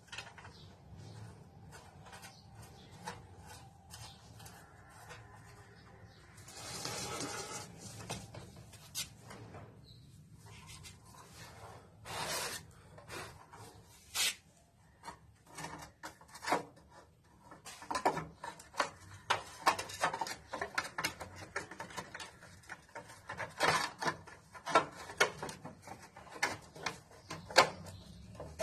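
Hand tools at work on a motorcycle engine: many short clicks and taps, coming thicker in the second half, with a brief rasping scrape about seven seconds in.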